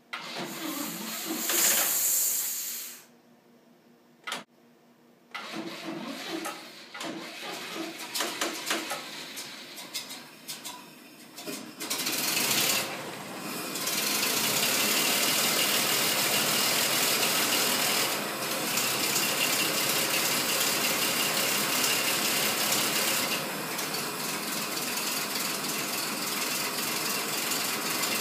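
1928 Rolls-Royce Phantom I's straight-six engine being test-started for the first time in fifteen years: several seconds of uneven sputtering and clattering, then about halfway through it catches and runs steadily.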